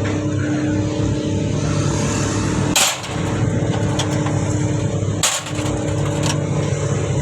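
Steady machine hum with a low, even pitch, broken by two sharp knocks or clanks about three and five seconds in.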